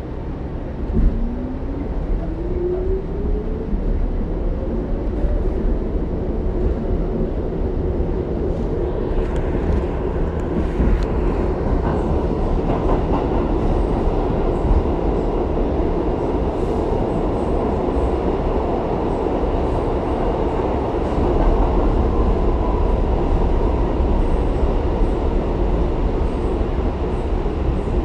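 R62A subway car heard from inside while under way. A whine climbs steadily in pitch over the first few seconds as the train picks up speed. It then settles into a steady rumble and rattle of the wheels on the track, with a knock about a second in.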